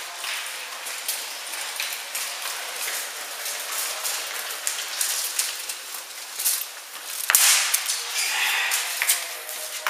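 Scattered sharp clicks and pops of an indoor airsoft game: airsoft guns firing and BBs striking hard surfaces, with a louder burst of noise about seven seconds in.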